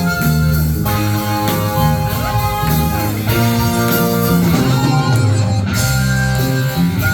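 A live rock band playing without a break: electric guitar and bass guitar over a full, steady ensemble.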